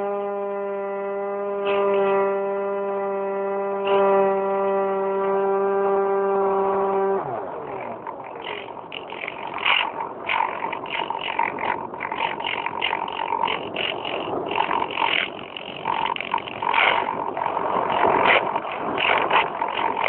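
Electric motor and propeller of an Easy Star RC plane, heard through the phone mounted on board, running at a steady pitch. About seven seconds in it cuts off with a brief falling whine as it winds down. After that there is irregular rushing, crackling noise.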